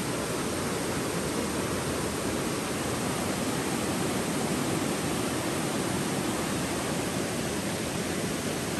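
Fast-flowing shallow stream rushing over stones, a steady, even rush of water.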